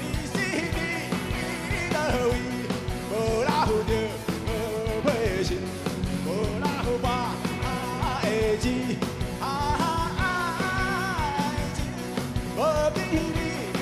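Live rock band playing at full volume, with a steady beat and a gliding lead melody over the band.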